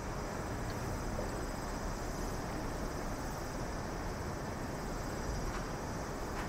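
Steady low rushing outdoor noise with a faint, steady high insect trilling above it.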